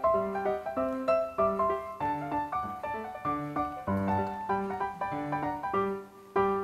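Background piano music: a flowing melody of single notes over lower bass notes, with a short pause near the end.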